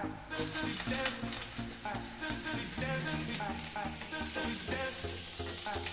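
Chopped garlic sizzling in hot cooking oil in a stainless steel pot, the sizzle starting suddenly just after the start as the garlic goes in and then going on steadily. Background music plays under it.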